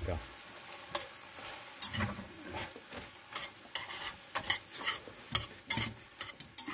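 Food sizzling in a frying pan on a portable gas stove as it is stirred with chopsticks, with irregular sharp clicks of the chopsticks against the pan.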